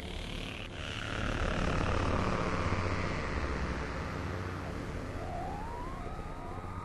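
Electronic soundtrack music: a low sustained drone under a swelling, whooshing noise sweep, then several overlapping synth tones gliding upward, like sirens, near the end.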